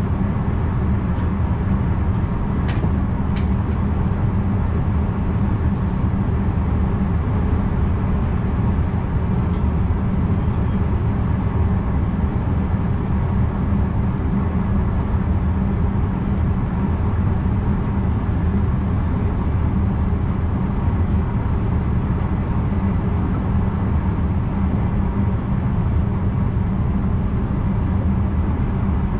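Steady running noise of a VIRM double-deck electric train heard from inside the driver's cab: an even low rumble that holds steady throughout, with a few light clicks in the first few seconds and once more about two-thirds of the way through.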